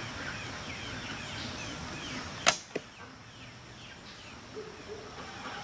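Longbow being shot: a single sharp snap of the string about halfway through, followed a moment later by a softer knock. Faint chirping sounds in the background.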